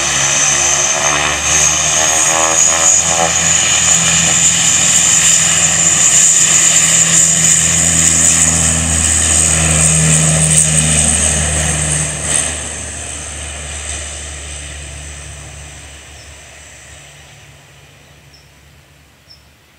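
Bombardier Dash 8 twin-turboprop airliner running at high power, a loud propeller drone with a high turbine whine that rises slightly in pitch early on. After about twelve seconds it fades steadily as the aircraft moves away down the runway.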